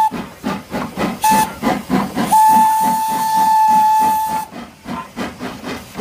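A full-size steam locomotive dressed as Thomas the Tank Engine chuffing along at an even beat and blowing its steam whistle. One blast cuts off at the start, a short toot follows about a second in, and then a long steady blast lasts about two seconds in the middle.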